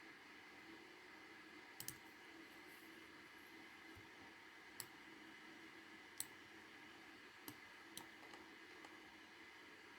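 Sparse computer mouse clicks, a quick double click about two seconds in, then single clicks every second or so, over faint steady room hum.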